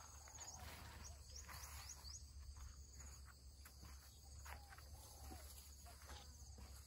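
Near-silent outdoor ambience: faint insects trilling and a few short bird chirps over a low steady hum.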